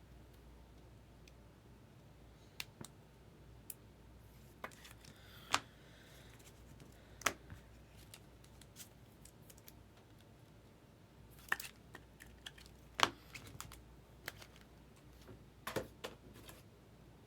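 Baseball cards and their packaging being handled: scattered sharp clicks and snaps at irregular intervals, a few clustered together near the end.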